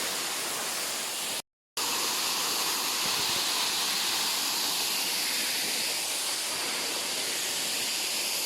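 Waterfall rushing in a steady, even hiss, cut off completely for a moment about one and a half seconds in.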